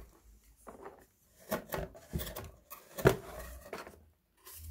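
Handling noise in an open cardboard box: a plastic power adapter and its cord being put down among plastic lamp parts, with rubbing and rustling and several sharp knocks, the loudest about three seconds in.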